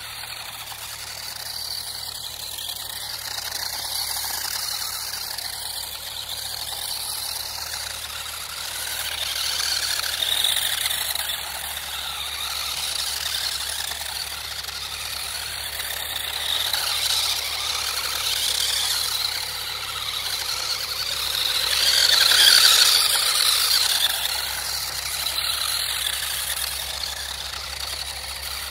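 Small electric RC drift car running, its motor whine and tyre noise rising and falling with the throttle, with louder surges about ten seconds in and again around twenty-two seconds in.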